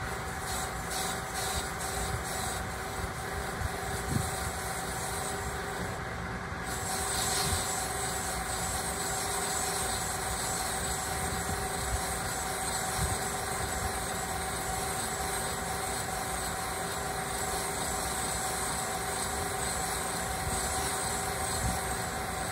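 Valve seat cutting machine running steadily at 115 RPM while a SABER TOOTH multi-angle carbide cutter blade cuts a hard-alloy intake valve seat in an aluminum cylinder head. The cut runs smoothly with no chatter, the sign of the tougher carbide handling the hard seat alloy. The sound grows a little louder about seven seconds in.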